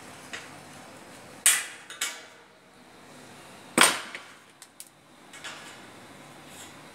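Sharp metallic knocks from hand work on an overhead sheet-metal fascia: two strikes about half a second apart, a louder one about two seconds later, then a few lighter clicks.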